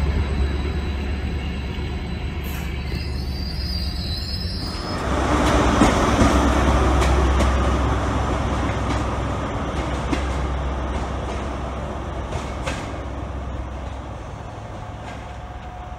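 A multiple-unit train pulling away with a steady low rumble. About five seconds in it gives way to a High Speed Train with its Class 43 power car running into a station, with engine rumble, wheel noise and a few clicks over the rail joints, slowly fading out.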